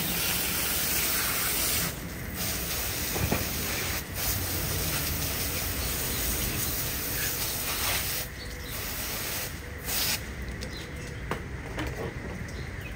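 Garden-hose pistol-grip spray nozzle spraying water onto a fish on a wooden cutting board, rinsing it: a steady hiss of spray and splashing in long bursts with short breaks. It ends with a few short bursts about ten seconds in, after which only a few small clicks and handling sounds remain.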